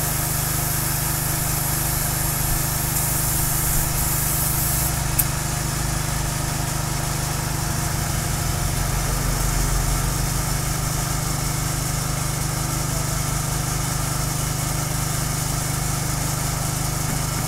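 Small single-cylinder petrol engine running steadily at a constant speed, with a hiss over the first five seconds.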